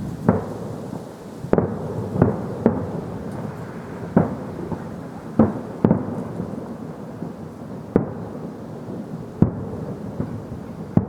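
Fireworks bursting in the distance: about ten sharp bangs at irregular intervals, each followed by a low rumbling echo.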